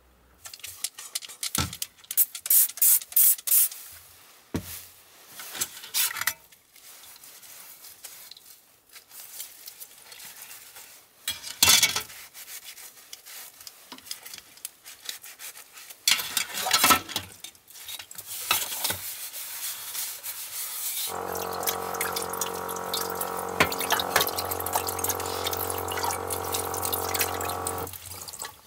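Dishes washed by hand at a small sink: a sponge scrubbing a metal plate with irregular scrapes and clatters. About three quarters of the way in, the tap runs steadily onto a black square pot for several seconds, with a steady hum under the water, then stops.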